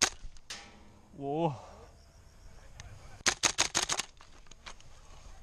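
Airsoft rifle shots, sharp cracks: a single shot at the start, another about half a second later, then a quick string of about seven shots a little over three seconds in. A short voice-like call with a bending pitch sounds between the first shots and the string.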